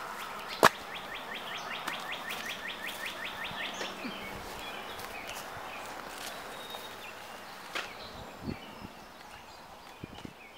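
A single sharp smack a little under a second in, as the egg is brought down on the knight's head. It is followed by a bird's rapid trill of downward-sliding chirps, about eight a second for some three seconds, over steady outdoor woodland ambience.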